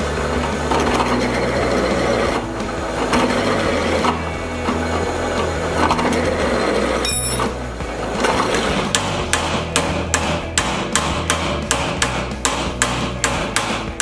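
Drill press running and cutting through a steel bracket, then, from a little past halfway, a hammer striking steel on a vise in quick even blows, about three a second.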